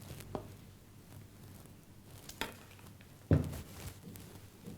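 Kitchen utensils and a vessel being handled while idli batter is scooped out: a small click, a light knock, then one louder dull thump about three seconds in.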